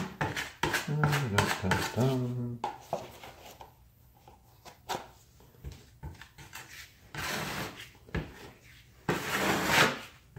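Metal putty knife scraping and smoothing patching compound over a wall patch, in a series of rubbing strokes, the two longest and loudest near the end.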